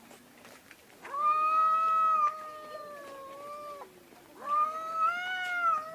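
A cat meowing: two long, drawn-out meows about half a second apart. The second rises a little in pitch, then falls away.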